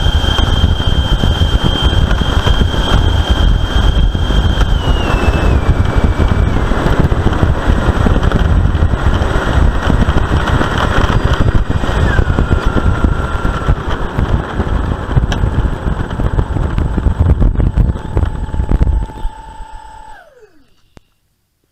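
Twin 70 mm electric ducted fans of an E-flite Su-30 model jet running with a loud rushing whine. The whine steps down in pitch about five seconds in and again about twelve seconds in, then the fans spool down and stop about twenty seconds in.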